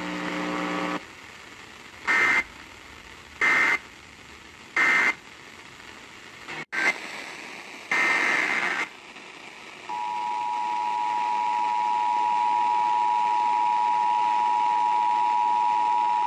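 Emergency Alert System data and alert tones. Three short, evenly spaced digital data bursts close one alert. After a click, a longer data burst opens the next alert, and about ten seconds in the steady two-tone attention signal starts and holds.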